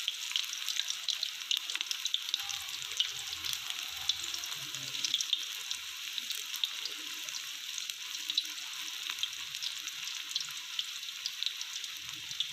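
Batter-coated potato slices deep-frying in hot oil: a steady sizzle with constant fine crackling, while the slices are turned over with a fork.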